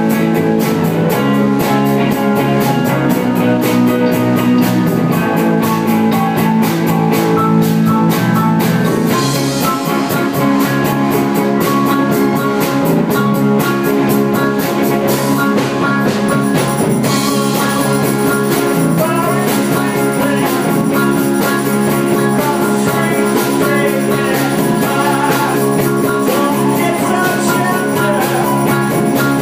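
A live rock band playing, with a drum kit keeping a steady beat under guitar and keyboard.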